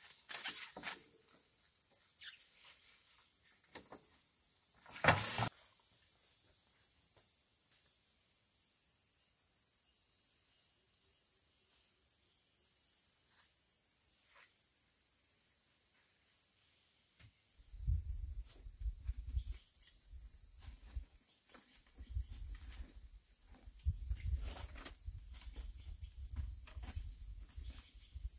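Insects chirping steadily: a continuous high trill with a faster pulsing chirp just below it. A single sharp knock sounds about five seconds in, and from about two-thirds of the way through, irregular low rumbles come and go.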